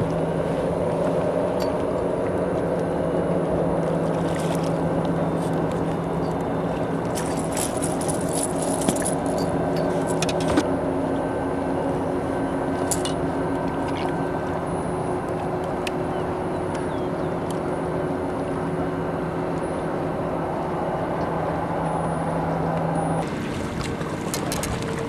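A boat motor running steadily with a low, even hum, with occasional sharp clicks and knocks over it. The hum stops abruptly near the end.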